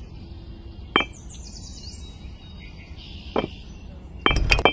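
Miniature clay bricks clicking against each other as they are set down and handled: a single click about a second in, another a little past three seconds, then a quick run of clinks near the end as bricks are picked from a pile.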